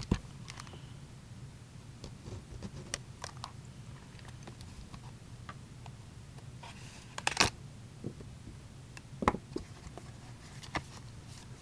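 Hockey card box and packs being opened and cards handled: scattered small clicks and taps, a short rustle of packaging about seven seconds in and a sharper knock a little after nine seconds, over a low steady hum.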